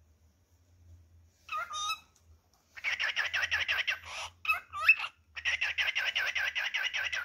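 Male cockatiel singing. A short call comes first, then fast runs of chirps at about ten a second, broken midway by two short whistled notes.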